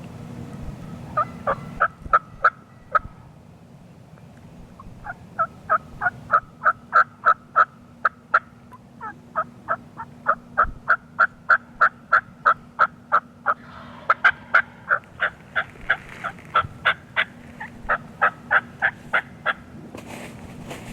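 Turkey hen yelping: four long runs of evenly spaced, loud yelps, about four a second, with short pauses between the runs.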